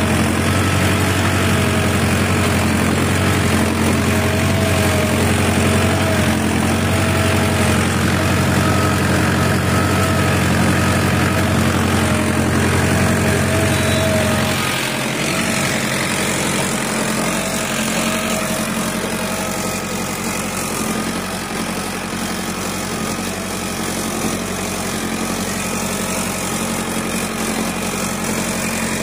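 Mahindra Novo 655 DI tractor's diesel engine running steadily under load while pulling a plough through the soil. The deep low rumble drops away about halfway through, leaving a lighter steady engine drone.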